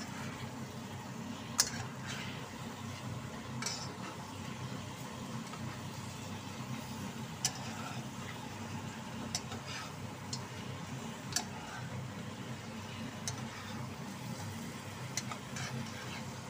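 Meat and vegetables sizzling in a wok as they are stir-fried, with a metal spatula clinking and scraping against the wok every second or two, over a steady low hum.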